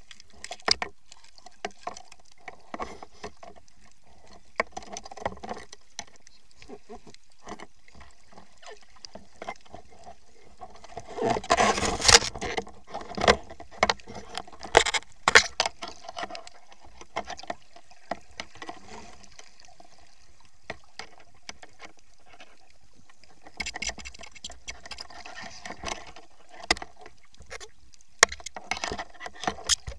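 Underwater sound picked up by a camera in its waterproof housing: scattered clicks and crackles over a faint wash of water, with a louder rush of water and a few sharp knocks between about 11 and 16 seconds in.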